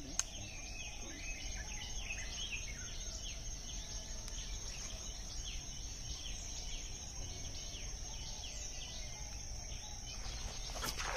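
Outdoor ambience: a steady high-pitched insect drone, with many short, quick bird chirps over it and a low background rumble.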